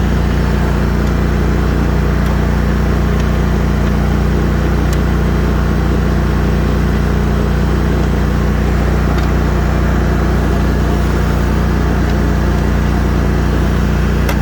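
25 hp Kohler V-twin engine of a Hustler Raptor SD zero-turn mower running steadily at constant speed.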